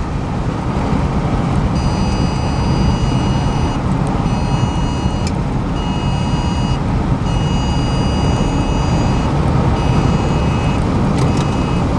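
Steady low road and engine rumble inside a moving car, with a high electronic beeping tone that sounds in several on-and-off spells of one to two seconds, starting about two seconds in.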